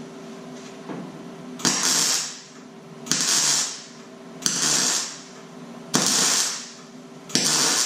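Welder laying short tack welds to fill holes in car floor sheet metal: five bursts of crackling hiss, each under a second and about a second and a half apart, over a steady low hum.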